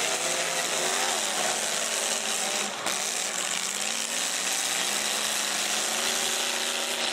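Several demolition-derby cars' engines revving hard at once as they push against each other with wheels spinning, their pitch rising and falling, over a harsh steady roar of noise.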